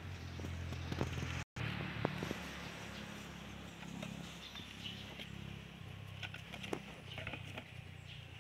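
Knocks and light clatter of a plastic feeding bowl carried in a puppy's mouth, over a low steady hum. The loudest knocks come about one and two seconds in.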